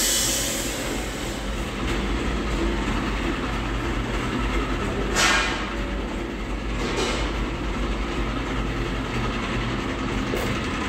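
Steady mechanical rumble and hum of factory machinery, with a brief louder burst about five seconds in and a fainter one about two seconds later.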